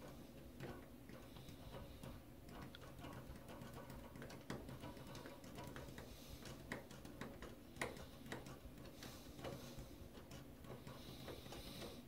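Polished brass door knob being handled and turned by hand: faint, irregular clicks and ticks, with a few louder clicks about four and a half and eight seconds in.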